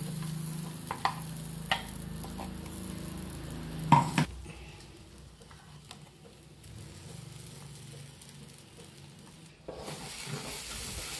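Wooden spatula stirring and scraping a thick moong dal paste and roasted wheat flour in a hot nonstick frying pan, with a faint sizzle. The spatula knocks sharply against the pan a few times in the first four seconds.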